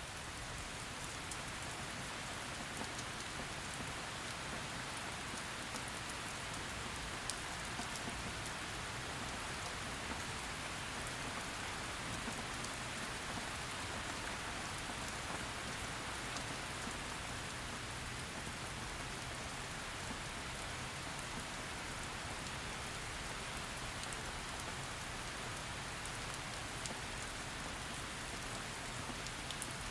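Heavy rain falling steadily, a dense even hiss with scattered sharp drop ticks.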